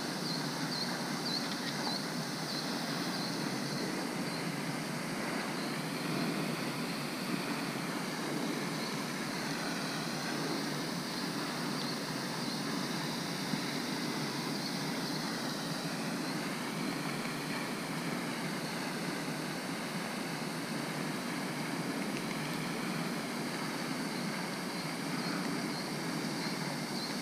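Steady outdoor background hiss, with faint high chirps in the first few seconds.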